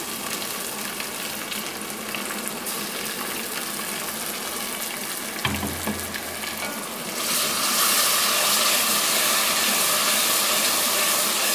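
Chopped tomato and fried onions sizzling in hot oil in a steel pan, a steady frying hiss. A single knock comes about halfway, and from about two-thirds in the sizzle gets louder as the mixture is stirred with a wooden spoon.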